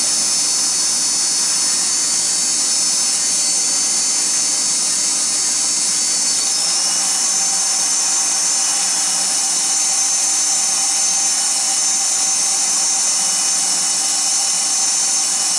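Rotary tool spinning a coarse abrasive polishing wheel against the edge of a sterling silver bead, grinding down the soldered seam with a steady high whine. The pitch shifts slightly about halfway through.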